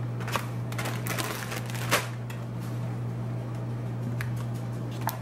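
Scattered knocks, clicks and rustles of food and kitchenware being set out on a countertop, the sharpest knock about two seconds in. Under them runs the steady low hum of a running dishwasher.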